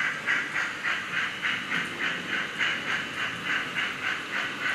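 HO scale model steam locomotive's sound decoder playing a steady chuffing, a rhythmic hiss at about three chuffs a second as the engine runs.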